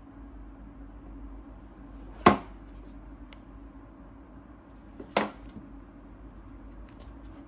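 Two sharp taps of a stiff cardboard box lid, about two seconds in and again about three seconds later, as the lid of an Apple box is taken off and set down on the table. A steady low hum underneath.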